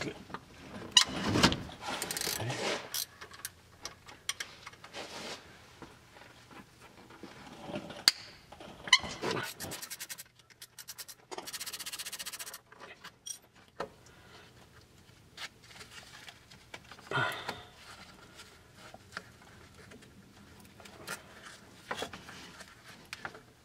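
Hand tools working bolts on a clutch slave cylinder: scattered metal clinks and knocks of a wrench on the fittings. About ten seconds in there is a quick run of rapid even clicks, followed by a second or so of scraping.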